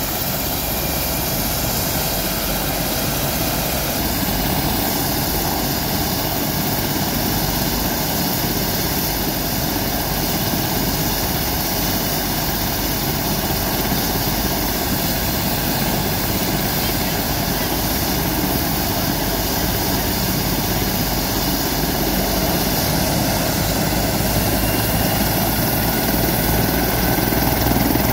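Rescue helicopter running on the ground with its turbine engines and rotor turning: a steady, loud helicopter noise that grows a little louder near the end.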